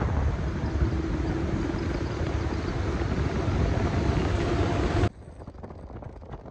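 Wind rushing over the microphone and the steady running noise of a Suzuki pickup at road speed, heard from its open cargo bed. It cuts off abruptly about five seconds in, leaving a much quieter wind hiss.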